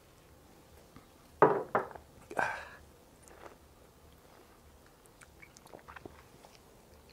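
Two sharp knocks about a second and a half in, likely the shot glasses going down on the cutting board after the tequila shots, then a loud breathy exhale. Faint lip smacks and sucking follow as the two men bite into lemon slices.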